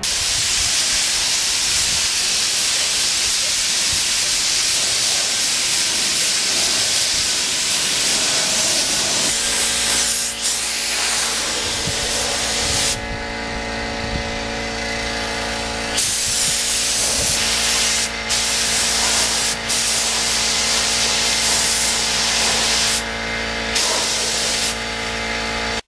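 Compressed-air spray gun hissing steadily as it sprays clear coat onto a motorcycle fairing. A steady motor hum joins about nine seconds in.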